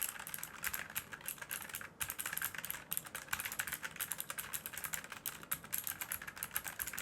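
Rapoo V500 Pro mechanical keyboard with blue switches being typed on quickly: a dense, fast run of clicky keystrokes with a brief lull about two seconds in.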